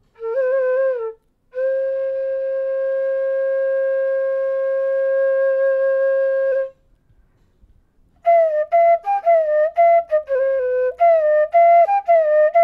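Solo flute playing: a short bending note, then one long held note for about five seconds, a brief pause, and a quick run of ornamented notes near the end.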